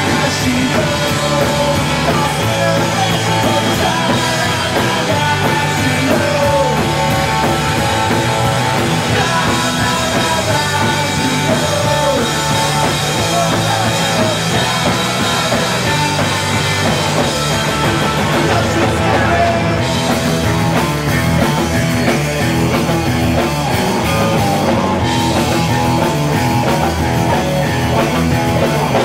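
Punk rock band playing live: electric guitars through Marshall amplifiers, electric bass guitar and a drum kit, loud and continuous without a break.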